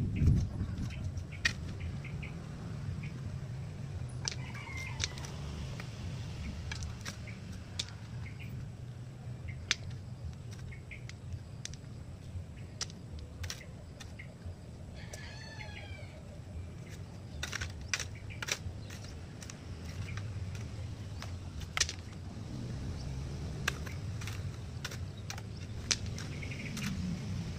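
Hoe scraping and knocking in grave soil, a scatter of short sharp clicks and scrapes over a steady low background rumble. About halfway through, a bird gives a quick run of chirps.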